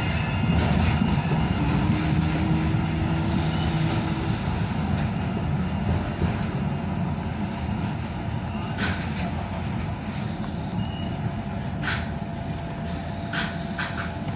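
Tyne and Wear Metro train heard from inside the carriage: a steady rumble of running gear and wheels on rail that slowly dies down as the train brakes into a station. A faint whine rises slightly in the first few seconds.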